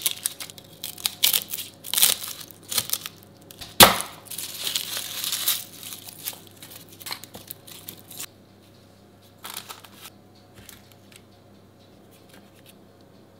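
Dry, papery onion skin crackling and tearing as it is peeled off by hand, followed by the rustle of garlic skins being pulled away. A single sharp knock just before four seconds in is the loudest sound; after about eight seconds the rustling dies down to a few faint touches.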